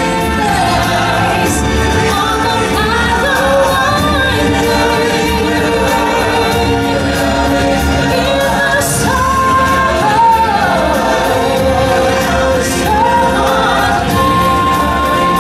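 Amplified show music with singers and a choir, held sung notes over a full backing track, loud and steady.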